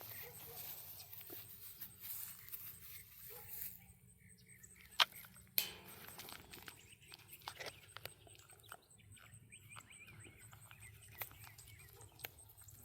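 Scattered rustling and small clicks, with two sharper clicks about five seconds in, and a few faint bird chirps.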